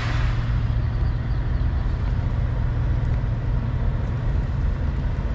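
Semi truck's diesel engine idling steadily, a constant low hum, with a brief hiss right at the start.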